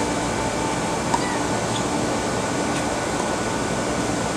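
Tennis rally on a hard court: a few faint, sharp knocks of the ball being struck, the clearest about a second in, over a steady background hum and hiss that is the loudest thing throughout.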